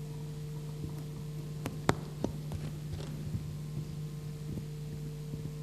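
Steady electrical hum from the hall's sound system, with a few faint clicks and knocks; the sharpest click comes about two seconds in.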